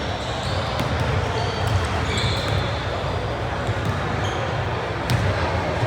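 Basketball game play in a gym: a ball bouncing on the hardwood court with sharp knocks, sneakers squeaking in short high chirps, and a constant hum of crowd and player voices in the hall.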